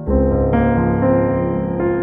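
Calm background music led by piano: a new chord sounds at the start, and more notes come in about half a second in and again near the end.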